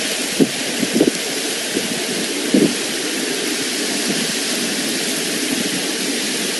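Steady rushing noise of floodwater mixed with hail pouring through a street in a hailstorm downpour, with a few brief low thumps.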